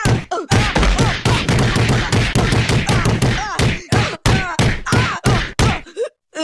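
Cartoon punching sound effects: a string of hard blows, with a rapid flurry of hits in the middle. Each separate blow is met by a short pained cry from a boy whose voice falls in pitch. The beating stops about six seconds in.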